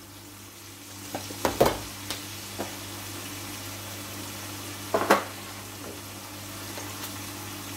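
Chicken and potato pieces sizzling steadily in oil in a wok, with a few sharp knocks, two about a second and a half in and another about five seconds in.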